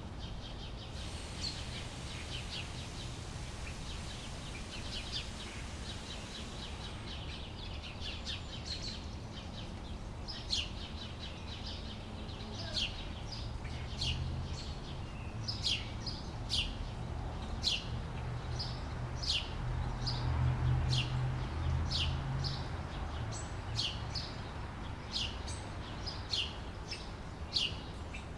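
Outdoor summer ambience of small birds chirping: quick, dense twittering at first, then from about a third of the way in, short high chirps that sweep downward, roughly one a second. A steady low rumble sits underneath.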